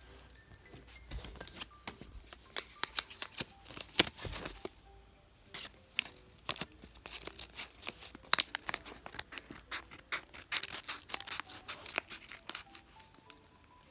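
Packaging being handled and opened by hand: irregular crisp clicks, snips and crinkly rustles of plastic and paper.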